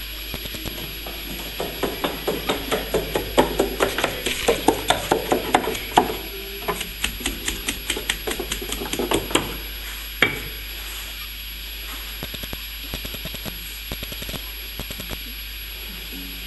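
Light earth mix of clay-coated grass and wood shavings being packed and tamped into wooden wall shuttering. A run of quick, regular knocks, about three a second, gives way to scattered knocks with one sharp click about ten seconds in, over a rustle of the fibrous mix.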